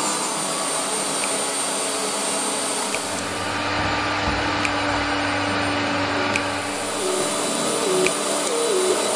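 Shop vacuum running with a steady rushing noise.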